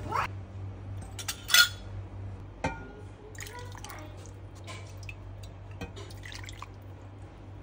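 Hot herbal chicken soup being ladled and poured into a bowl: liquid dripping and splashing, with a few light clinks of utensils against dishes, the loudest about a second and a half in.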